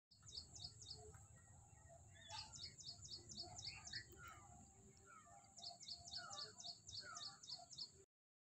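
Faint birdsong: two runs of quick, high, repeated chirps, about six a second, with scattered lower calls between them, over a thin steady high-pitched hum.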